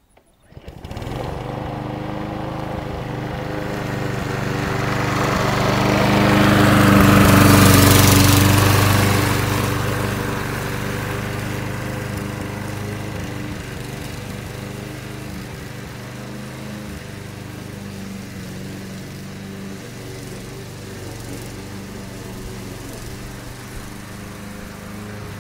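Walk-behind power lawn mower's small engine running steadily as it is pushed across grass. It grows louder as it passes close by, loudest about a third of the way in, then drops back to a lower, steady level as it moves away.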